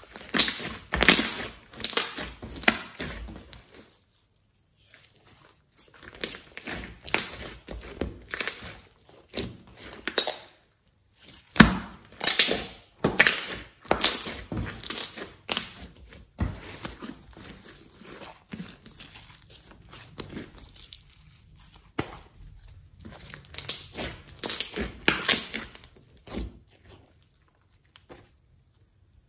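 Hands squeezing, pressing and stretching a large batch of glitter slime. It makes bursts of rapid clicking and popping, with short pauses between handfuls.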